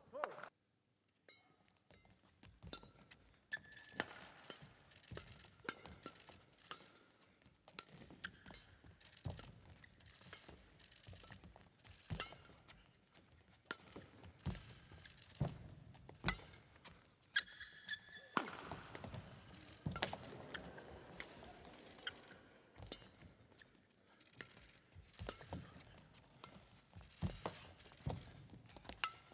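Badminton rally: sharp racket strikes on the shuttlecock at irregular intervals, with players' court shoes squeaking on the hall floor. A brief swell of crowd noise comes a little past halfway.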